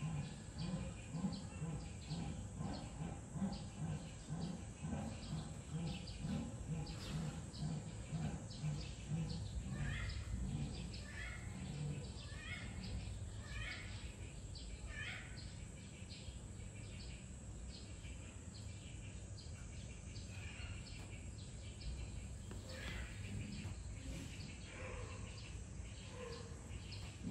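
Small birds chirping over steady outdoor background noise, with a run of short rising chirps between about ten and fifteen seconds in. A low, even pulse repeats about twice a second through the first half.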